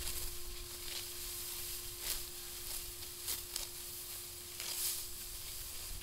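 Dry wheat stalks rustling and crackling as they are gathered and cut by hand, with a crisp swish roughly every second, over a faint steady hum.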